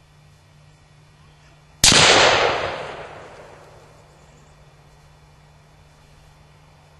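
One loud, sharp bang of gunfire or a Tannerite blast about two seconds in, its echo dying away over about a second and a half.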